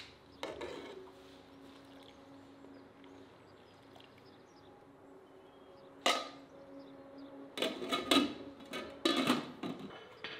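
Kitchen clatter: sharp knocks and clinks, one about half a second in, then a quick run of them in the last four seconds, over a steady low hum.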